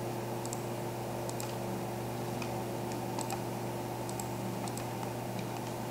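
Light, irregular clicks from a computer mouse and keyboard, a few in each second, over a steady low hum.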